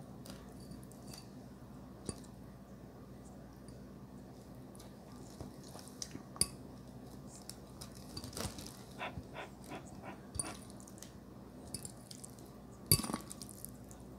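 A metal fork clinking and scraping against a glass bowl of noodles, with wet chewing and mouth sounds close to the microphone, over a faint steady low hum. There is a quick run of small clicks partway through, and the sharpest clink comes near the end.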